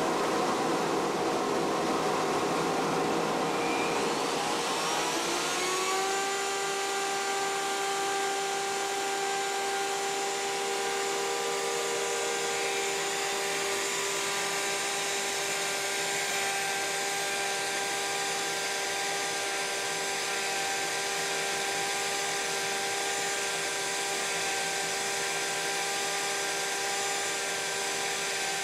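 Shop dust collector running with a steady whine. About four seconds in, a wood router starts up in a copy-carving jig on a lathe: its whine rises and settles into a steady high tone about six seconds in. Both machines then run steadily together.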